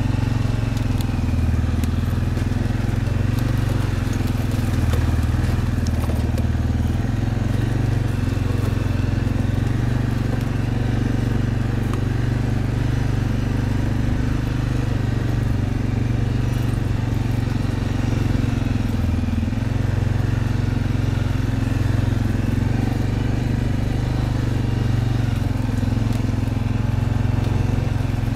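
An ATV's engine running steadily, a low drone, as the quad rides along a trail.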